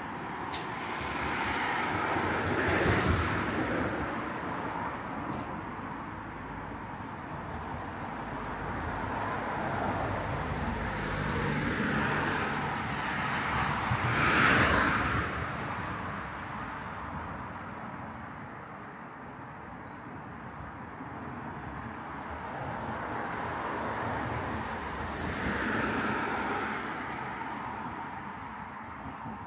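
Cars passing on a street one after another, each swelling up and fading away, the loudest about halfway through.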